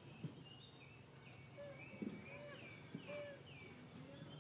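Faint high chirping calls, a string of short notes that each fall in pitch, over a low steady hum. Three soft knocks come in the first three seconds.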